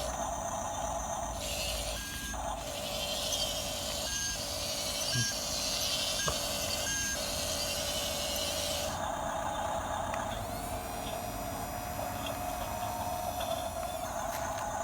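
Small electric motors and gearboxes of RC construction models whining steadily. The sound changes abruptly several times.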